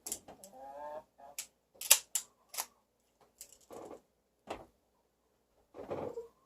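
Irregular metallic clicks, knocks and short scrapes from handling an air pistol while a moderator and its thread adapter are fitted. One sharp click about two seconds in is the loudest.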